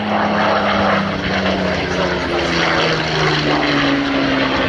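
Supermarine Spitfire Mk V's Rolls-Royce Merlin 45 engine running as the fighter makes a low pass, its note falling in pitch as it goes by.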